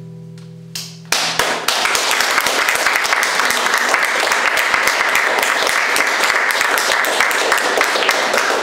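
The band's last guitar chord rings out and fades; about a second in, the audience breaks into applause that keeps going.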